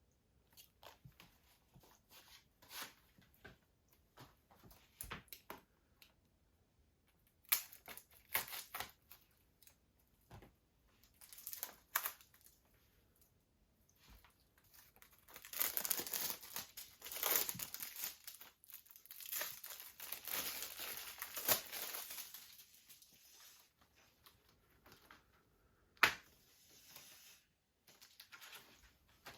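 Plastic shrink-wrap being torn and peeled off a Blu-ray case, with scattered rustles and a long stretch of crinkling in the middle. A single sharp snap comes near the end.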